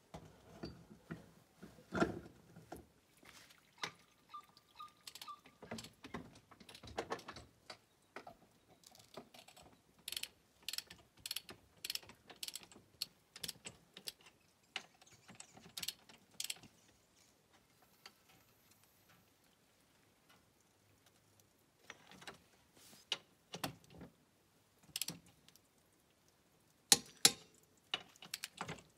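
Socket wrench ratcheting and metal tools clinking against wheel nuts as an ATV wheel is taken off: scattered clicks, a run of quick, evenly spaced clicks in the middle, a pause of a few seconds, then a few sharper metallic clinks near the end.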